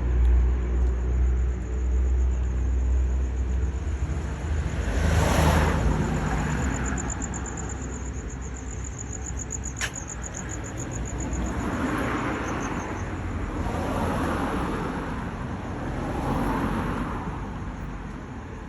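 Street traffic heard while walking: a vehicle's low rumble for the first few seconds, then cars going by in swells every couple of seconds. A single sharp click comes about ten seconds in.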